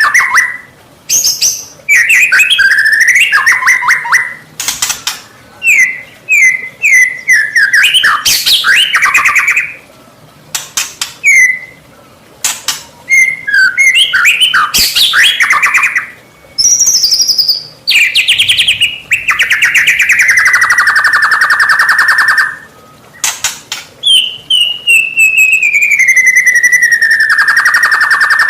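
White-rumped shama (murai batu) singing loudly in varied phrases of quick whistled and sliding notes, with a long fast trill past the middle and a long falling trill near the end.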